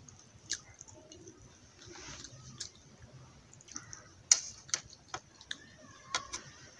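Close-up eating sounds as rice and potato curry are eaten by hand: irregular sharp clicks and smacks, about eight in all, the loudest a little after four seconds in.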